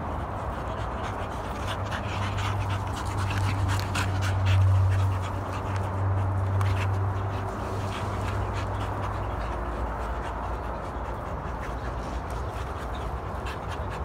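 Puppies growling and panting as they tug at a hanging rope toy, with a low, steady growl from about two seconds in that fades out after about seven.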